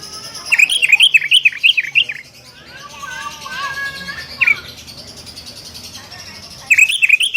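Sooty-headed bulbul calling: a fast run of loud, repeated chirps about half a second in, softer warbling notes in the middle, then another fast run of chirps near the end.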